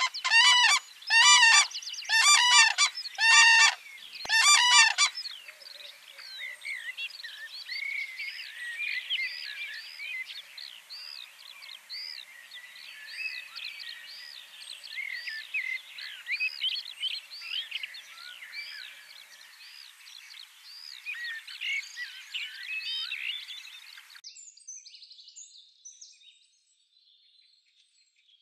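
Common crane calling: about five loud trumpeting calls in quick succession in the first five seconds. After that, smaller birds keep up a busy chirping and singing until it goes almost silent about 24 seconds in.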